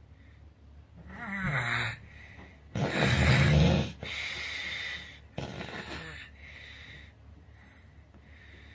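A sleeping person snoring: a snore about a second in, a louder one around three seconds in, then two softer snoring breaths.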